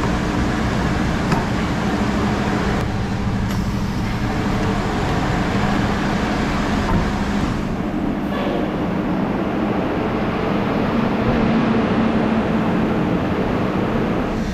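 Semi truck's diesel engine running with a steady drone and road-type rumble.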